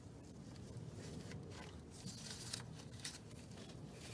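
Faint handling noises as a hose part is worked into place by hand: light rubbing with a few soft clicks about a second and a half, two and a half and three seconds in.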